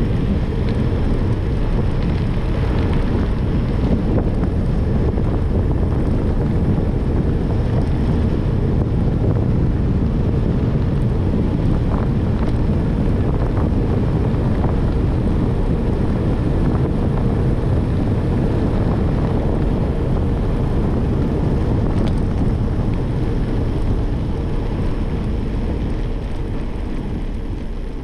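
Steady wind noise buffeting the microphone of a handlebar-mounted camera on a road bike riding at speed, easing a little near the end.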